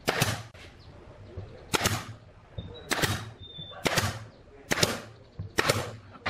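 Pneumatic nail gun firing six times, roughly once a second, each a sharp crack as it drives a nail into pine boards.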